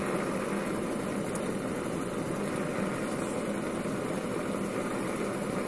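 Water-cooled Warpfive Stirling engine generator running steadily on a propane burner: an even hum and hiss with no distinct beats. It is turning its small DC generator under load, charging an iPod.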